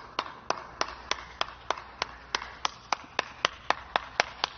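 One person clapping hands at a steady pace, about four claps a second.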